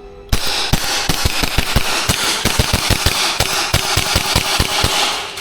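Airsoft gun fired in a rapid string, about five or six sharp shots a second over a steady hiss. It starts suddenly a third of a second in and stops near the end.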